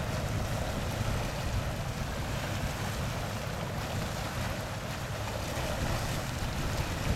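Water rushing past a boat's hull and wind on the microphone, over a steady low rumble from a boat underway.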